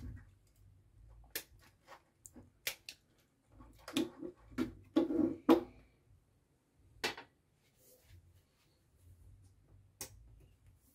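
Handling clicks and light knocks from a screwdriver and a relay socket with its relay being worked and set down on a desk, with a cluster of duller knocks about four to six seconds in.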